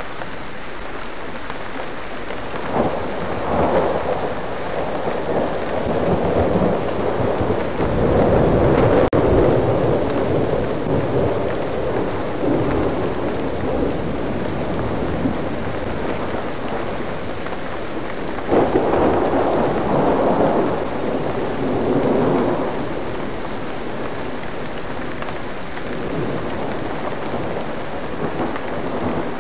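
Steady rain falling in a thunderstorm, with rolls of thunder swelling and fading several times: a few seconds in, loudest about a third of the way through, and again about two-thirds through.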